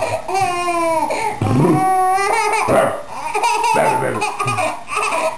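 Baby laughing hard in several long, high-pitched bursts.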